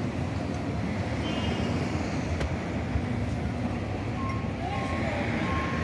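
Steady low rumble of street traffic, with a faint tick or two.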